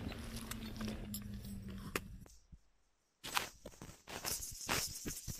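Scattered clicks and rattles of soldiers' gear and rifles being handled. A low steady hum runs through the first two seconds and fades out, and a busier run of sharp clicks follows from about three seconds in.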